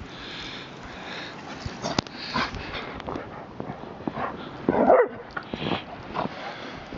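Two dogs, a beagle and a black-and-white dog, playing in deep snow: scuffling and sniffing, with one short, loud bark just before five seconds in.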